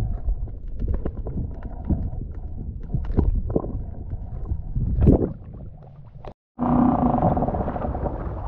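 Muffled underwater rumble with scattered clicks and knocks, picked up by a camera held below the surface. About six seconds in it cuts off, and after a brief gap it gives way to wind and water noise at the surface.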